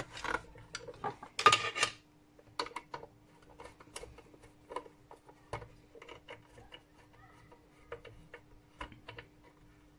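Scattered small clicks and taps of a screwdriver working at a terminal block and of a power cable being handled against a luminaire's metal mounting plate and plastic housing. There is a louder clatter about one and a half seconds in, and a faint steady hum underneath for most of the rest.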